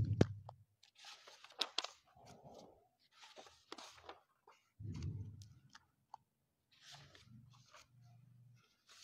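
Paper pages of a book being leafed through close to a microphone, rustling in several short bursts, with a low bump at the start and another about five seconds in.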